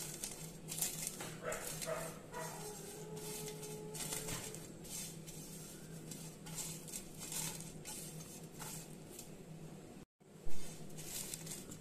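Dry fried red chillies crackling and scraping under fingertips as they are rubbed with salt into flakes on a stainless steel plate. A brief gap about ten seconds in, followed at once by one loud knock.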